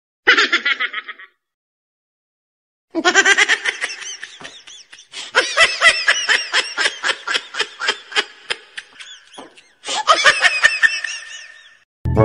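Laughter in rapid ha-ha pulses, several a second: a short burst near the start, then a long run of laughing from about three seconds in that breaks off once and resumes, stopping abruptly just before the end.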